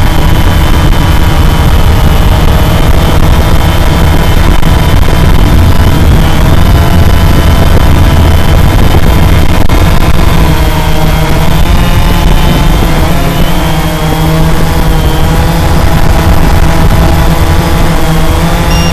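Cheerson CX-20 quadcopter's brushless motors and propellers running right beside the onboard camera: a loud steady whine over a heavy rumble of rotor wash on the microphone. About halfway through, the whine wavers in pitch as the motor speeds change.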